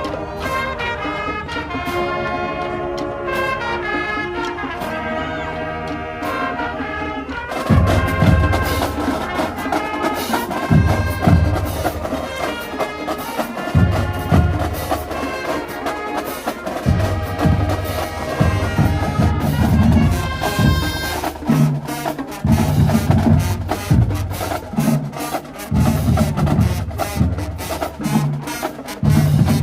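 Middle school marching band playing: the brass section plays held chords and runs. About eight seconds in, the bass drums and drumline come in with heavy repeated hits under the horns.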